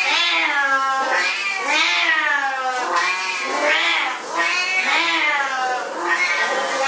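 Siamese cat yowling: long, loud, wavering meows that rise and fall in pitch, one after another at about one a second.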